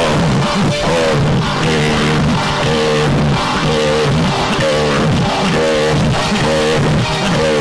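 Loud music: a short melodic phrase on a plucked-string instrument repeating about twice a second over a steady low bass.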